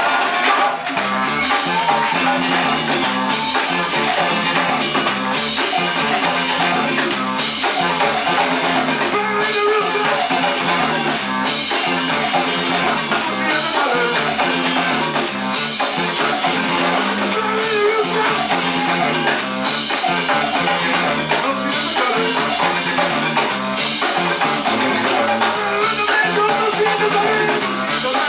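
Live band playing continuously, with drum kit, guitar and saxophone, recorded from among the audience.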